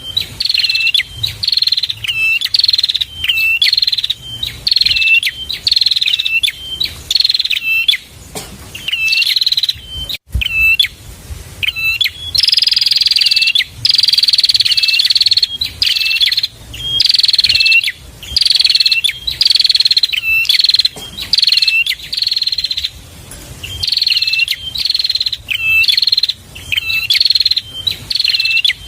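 Prenjak (prinia) singing in loud, high, buzzy repeated phrases, about two a second, broken by a few longer buzzing runs. A single short knock comes about ten seconds in.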